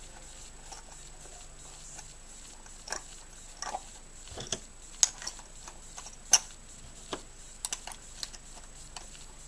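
Loaded stripper clips of 7.62x54R rifle cartridges being pushed into a leather ammo pouch: scattered sharp metal clicks and taps. The two loudest come about halfway through.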